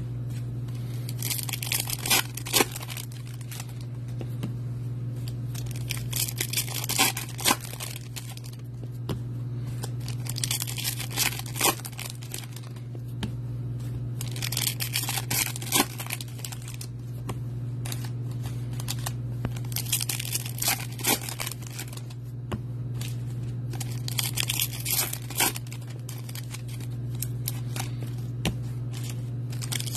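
Baseball trading cards and their foil pack wrappers handled by hand: bursts of crisp sliding and crinkling every four to five seconds, over a steady low hum.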